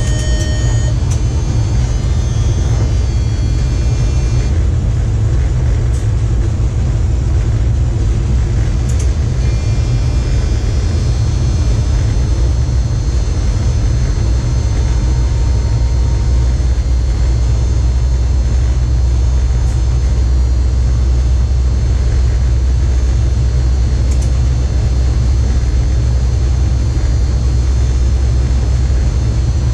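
Steady low rumble inside an electric train's driver's cab running at speed, with thin high electrical whines above it that change pitch a few times and a few faint clicks.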